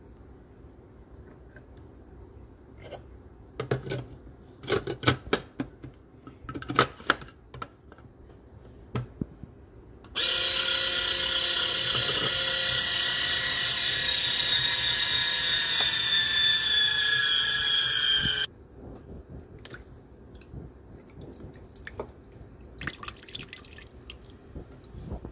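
A small electric juicer's motor runs for about eight seconds, a steady whine made of several tones that sinks slightly in pitch, then cuts off suddenly. Before it come a run of knocks and clatter, and after it a few light clicks.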